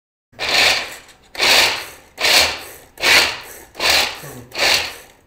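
Hand-pulled cord food chopper chopping almonds, cashews and walnuts: six quick pulls of the cord, under a second apart. Each pull is a short whir of the blades spinning through the nuts, fading as the spin slows.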